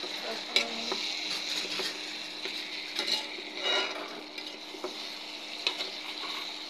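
Chicken pieces frying and sizzling in a thick curry in a granite-coated frying pan while a spatula stirs them, scraping and knocking against the pan a handful of times. A steady low hum runs underneath.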